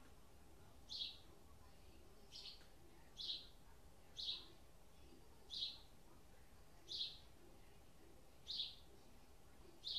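A bird chirping over and over, one short high chirp about every second and a half, faint against a low steady hum.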